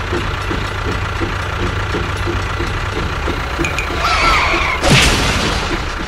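Tractor engine running steadily with an even chug of about four beats a second. About four seconds in, a brief wavering high tone sounds over it, and about five seconds in there is a sudden falling boom.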